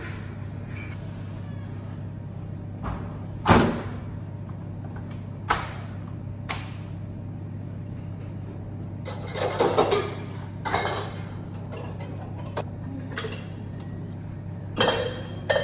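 Bar equipment being handled behind a bar counter: a sharp knock about a third of the way in, a couple of lighter knocks, then bouts of clattering and clinking in the middle and near the end as rubber bar mats and gear are fetched. A steady low hum runs underneath.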